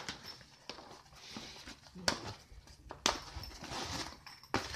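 Nylon tactical vest being handled: cloth rustling, with three sharp clicks from its fasteners spread through the few seconds.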